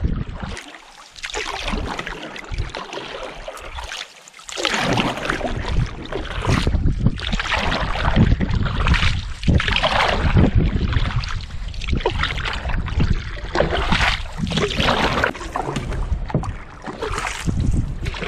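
Canoe paddle strokes swishing and splashing in lake water beside the hull, with wind buffeting the microphone. It is quieter for the first few seconds, then about four seconds in the wind and water noise grows louder in uneven surges.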